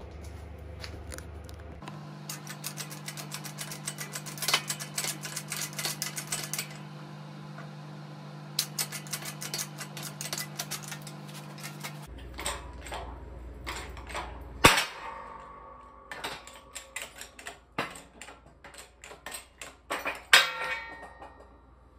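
Hand-pumped bottle jack of a 20-ton hydraulic shop press pushing a ball joint out of a BMW E30 lower control arm: runs of quick clicks and ticks from the pump and the metal parts over a low hum. About 15 seconds in a single sharp metal bang with a ringing tail as the joint lets go, then scattered clanks with another ringing clank near the end.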